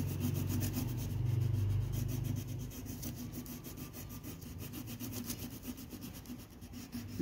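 Purple wax crayon rubbed rapidly back and forth on paper, shading in a large area with short strokes. A low steady hum underneath fades out about two and a half seconds in.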